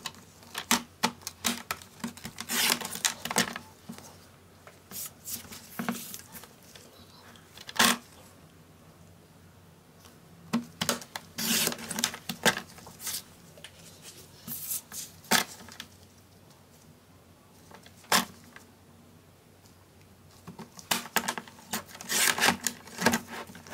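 Sliding-blade paper trimmer cutting printed sticker sheets: scraping passes of the blade along its rail, sharp clicks as the rail and sheets are set down, and paper handling, in irregular clusters.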